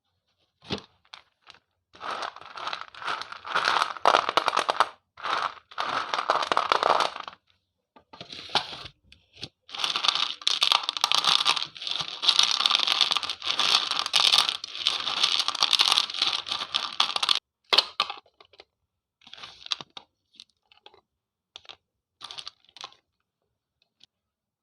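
Slate pencils being bitten and chewed: dense, gritty crunching in two long stretches, then a few short separate crunches near the end.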